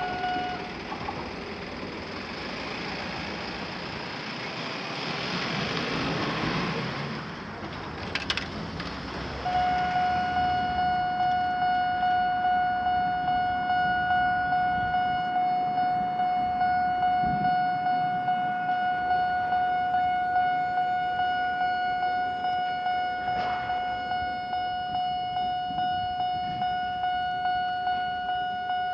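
Japanese railway level-crossing alarm on the Echizen Railway. The bell cuts out just after the start, leaving the rumble of a passing train with one sharp click about eight seconds in. At about nine and a half seconds the alarm starts again and rings steadily with a repeating ding roughly once a second.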